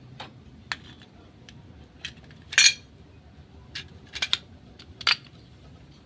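Motorcycle wet-clutch plates of a Suzuki Shogun SP125 clinking against each other as the clutch pack is handled and fitted together by hand: a string of separate sharp metallic clicks, the loudest with a short ring about two and a half seconds in.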